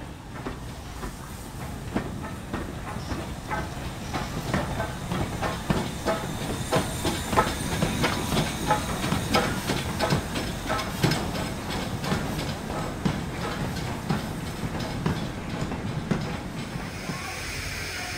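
Steam-hauled goods train moving slowly: a steady run of clicks and clanks from the wagon wheels and couplings, with steam hissing. It gives way near the end to a steadier hiss of steam.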